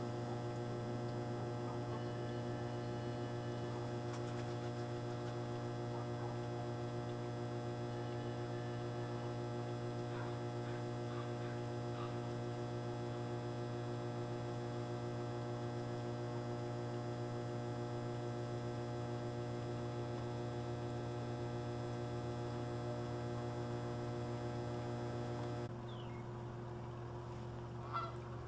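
A steady low hum with a stack of even overtones, which drops away abruptly a few seconds before the end. Faint, distant goose honks come through it now and then, mostly around the middle.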